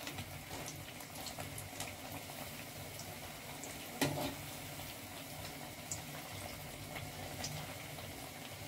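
Battered bottle-gourd bhajiya frying in hot oil in a kadhai: a steady bubbling sizzle with scattered small pops. About four seconds in there is a single knock of the slotted spoon against the pan as the fritters are turned.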